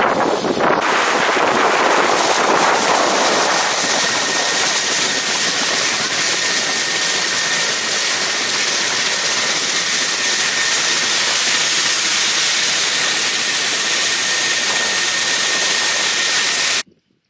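Mi-17 helicopter's twin turboshaft engines and rotor running steadily with a high turbine whine; the sound cuts off suddenly near the end.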